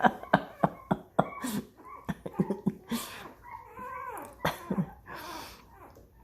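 Newborn puppies squeaking and whimpering, mixed with a quick run of short, sharp, cough-like noises in the first half.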